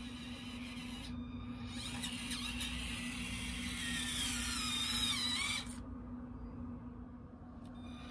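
Axial SCX24 1/24-scale C10 RC crawler's small electric motor and plastic gears whining as it drives, the pitch rising and falling with the throttle. It pauses about a second in, starts again and grows louder as it comes closer, then cuts off suddenly a little past halfway as the truck stops.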